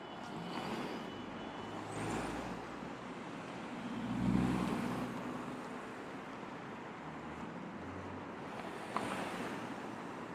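City street traffic: cars driving past close by one after another, with a low engine drone swelling loudest about four seconds in as a heavier vehicle goes by. A short sharp tick sounds near the end.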